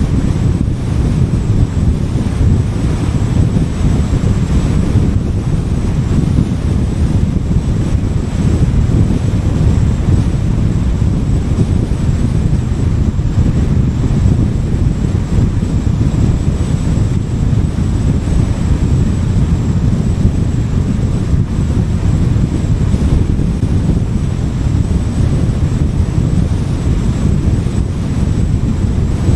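A car driving along a highway: a steady low rumble of road and wind noise with no changes.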